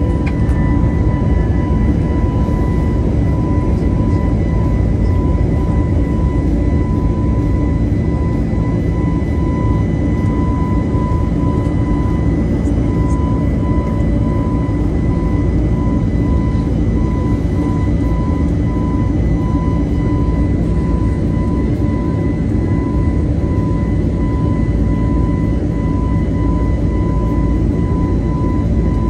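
Jet airliner cabin noise during takeoff and climb: the engines at climb thrust give a steady heavy rumble with a constant high whine over it.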